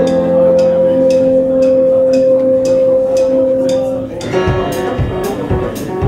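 Music: held notes over a steady high ticking beat about twice a second, changing at about four seconds to low bass notes pulsing on the beat.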